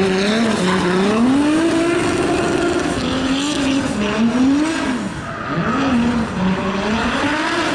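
Turbocharged VR6 engine of a BMW E36 drift car, its revs rising and falling over and over as it drifts, over the squeal of the rear tyres spinning and sliding.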